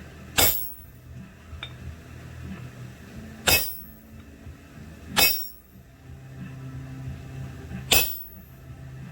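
Hammer striking steel on an anvil: four separate ringing blows, a second or three apart, over a faint low steady hum.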